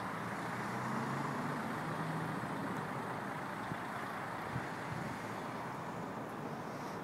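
Steady road-vehicle noise: a continuous rumble with a faint low engine hum in the first few seconds.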